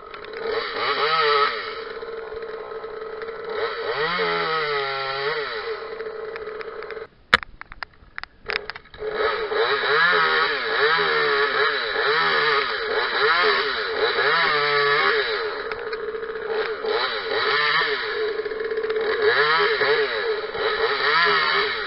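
Parker 26cc top-handle two-stroke chainsaw idling and revving up again and again as it cuts through small branches, the engine note climbing and falling with each rev. About seven seconds in the sound drops away for a second or two with a few sharp clicks, then the revving carries on.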